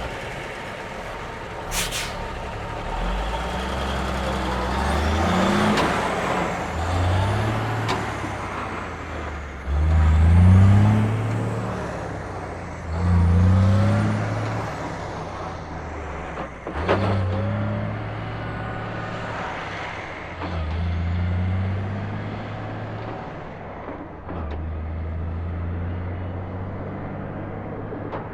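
An eighteen-wheeler's diesel engine pulling away slowly. It revs up in pitch through each gear and drops back at every shift, about six or seven times. A short burst of air hiss comes about two seconds in and again a little past the middle.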